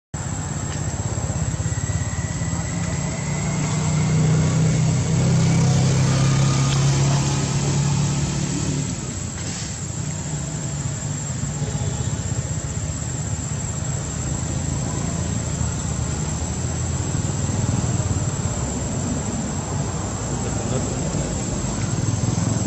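A steady low engine rumble, loudest a few seconds in, then easing a little and holding.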